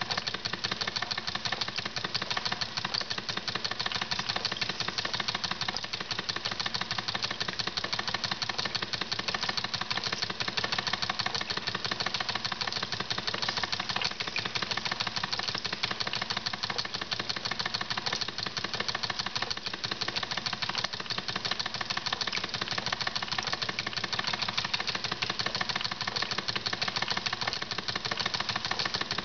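Wilesco toy steam engine running steadily on about 2 psi of steam, driving a model beam water pump through a belt: a fast, even chuffing and clatter.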